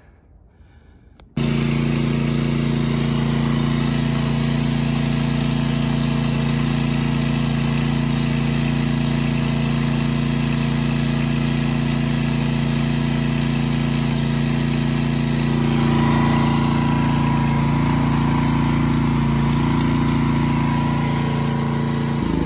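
Portable generator's Briggs & Stratton engine running steadily at its governed speed, the speed that sets the output frequency near 60 hertz. The engine sound cuts in abruptly about a second in, and its note shifts slightly about two-thirds of the way through.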